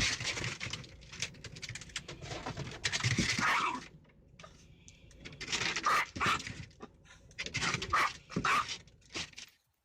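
A small dog, a Chihuahua, growling and snarling in several rough bursts with short pauses between them, stopping abruptly near the end.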